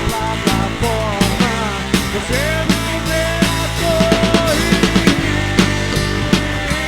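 Live rock band playing: electric guitar, bass guitar and drum kit, with a lead line of sliding, held notes over a steady drum beat.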